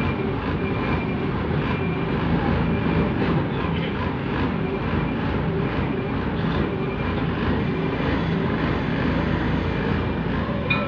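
Diesel engine of a Kobelco RK160-2 rough-terrain crane running steadily, with a faint high whine coming and going.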